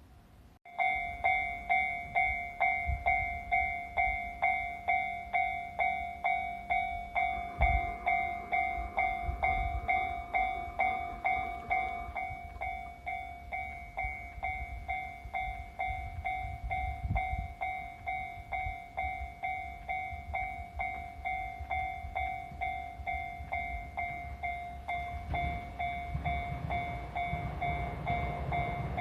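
Japanese railway level-crossing alarm switching on and ringing its electronic bell in an even ding-ding about twice a second, warning of an approaching train. In the last few seconds the low rumble of the train grows beneath the bell.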